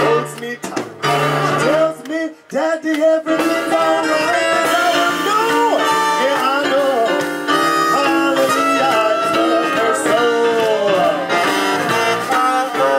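Swing jazz band playing live, with a saxophone and a male singer. The music comes in short phrases with gaps at first, then runs on continuously from about three seconds in.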